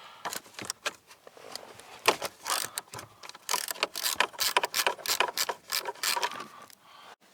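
Ratchet wrench clicking in quick spurts while it loosens the 12 mm nuts that hold a Hyundai Solaris accelerator pedal assembly.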